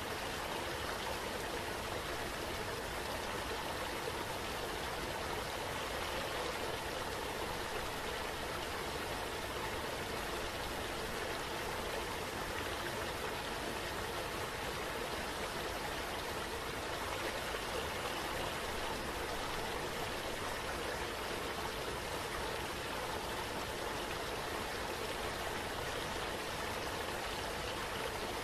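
Steady rushing water of a waterfall.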